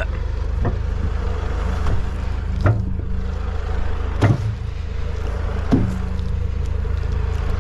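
Tractor diesel engine running steadily, with several sharp knocks about every second and a half as the front-loader bucket is worked.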